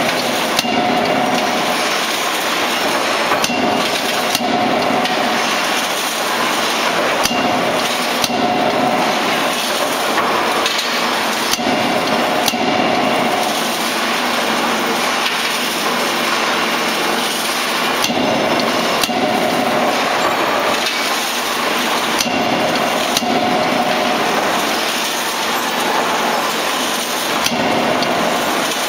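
A 16 kJ CNC double-acting die forging hammer striking a hot workpiece in its dies, with sharp blows at uneven intervals of about a second. Under the blows runs a continuous loud machinery din that swells every four seconds or so.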